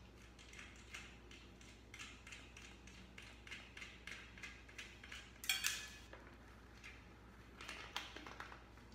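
Hands working a bicycle tire's rubber bead around the wheel rim: a string of faint scrapes and clicks, with a louder sharp snap about five and a half seconds in and a few more clicks near the end.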